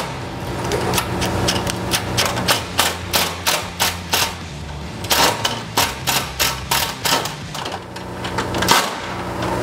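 Cordless impact driver driving a screw through overlapping diamond-plate aluminium trim, its hammer mechanism rattling in fast irregular clicks over a steady motor hum.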